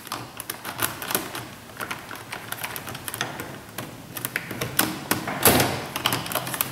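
Plastic interior door-panel trim being handled and pressed into place: a run of irregular light clicks and taps, with a louder rustle about five and a half seconds in.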